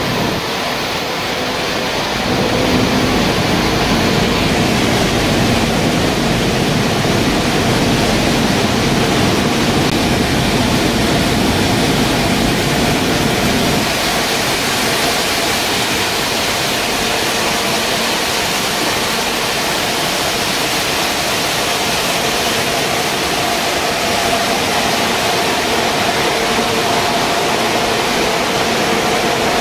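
Waste-tire rubber powder production line running: steady rushing noise of grinding mills and blowers with a few steady hum tones. The noise changes character about two seconds in and again about fourteen seconds in.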